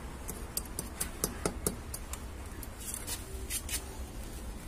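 Scattered light clicks and taps of handling, about a dozen spread over a few seconds, over a low steady rumble.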